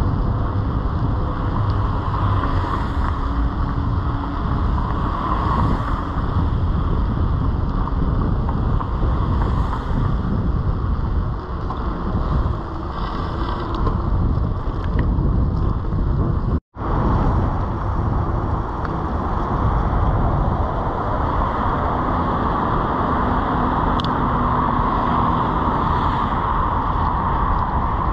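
Steady road and wind noise from a bicycle riding on wet pavement: a low rumble and rush of wind over a handlebar-mounted camera microphone. The sound cuts out completely for a moment about two-thirds of the way through, then resumes.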